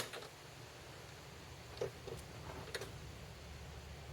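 Clamp and workpiece handling on a glue-up: one sharp click at the start, then a few faint ticks and taps as the clamp is tightened to close a glued panel joint.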